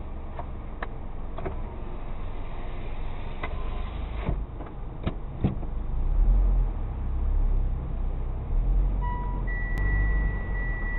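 A car moving slowly with a low engine and tyre rumble, heard from inside. There are several sharp knocks in the first half, and the rumble swells about six seconds in. From about nine seconds in, a steady high electronic beep tone sounds.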